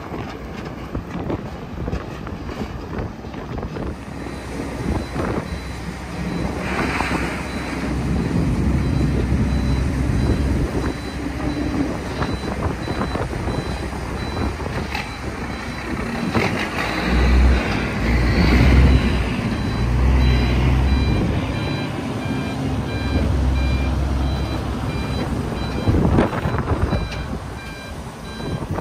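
A heavy diesel vehicle's engine runs with a low rumble that swells in the second half. From about halfway through, a reversing alarm beeps at an even rate.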